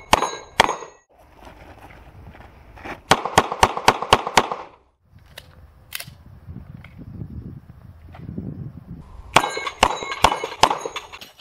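Semi-automatic pistol fired in quick strings: two shots at the start, a fast string of about seven a few seconds in, a single shot about halfway, and another rapid string of about eight near the end.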